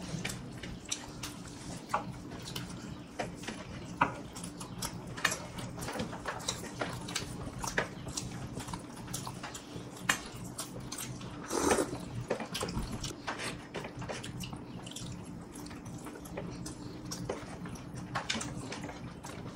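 Close-up eating sounds of people chewing biryani eaten by hand: scattered wet lip smacks and mouth clicks over a steady low hum. There is a short voiced murmur about twelve seconds in.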